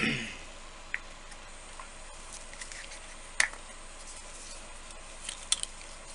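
Scattered light clicks and taps from craft supplies being handled: a sharper click at the start, then single clicks about a second in, midway and near the end, over a steady background hiss.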